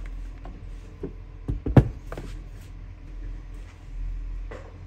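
A few handling knocks and clicks, the loudest about two seconds in, over a steady low hum.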